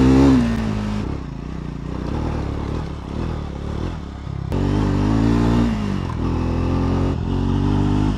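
Triumph Scrambler 400 X's single-cylinder engine under way on a rough dirt trail. The revs drop at first and it runs low and uneven for a few seconds. About four and a half seconds in it opens up louder, the revs rising and falling.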